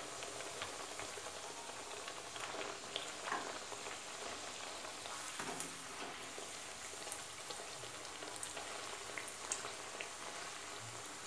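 Khaja pastry deep-frying in hot oil in an aluminium kadhai: a steady sizzle with small crackles and pops, while a slotted spatula turns it in the oil.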